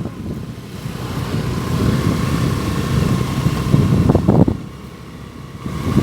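Wind buffeting the microphone: a steady low rumble that eases off about four and a half seconds in, then builds again at the end.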